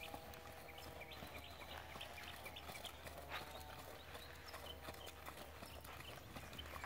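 Horse walking under saddle on a sand arena: soft hoofbeats with scattered light clicks, all faint. A faint wavering hum runs behind.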